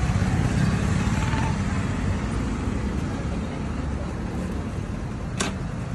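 School bus engine idling with a steady low hum, and a single sharp click near the end.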